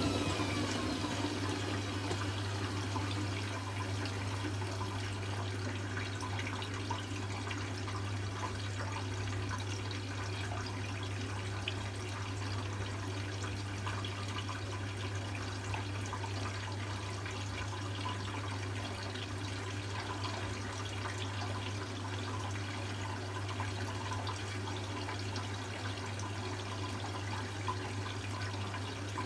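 Hoover Classica 1100 AC164 washing machine filling with water at the start of its final rinse: a steady rush and trickle of water into the drum over a constant low hum.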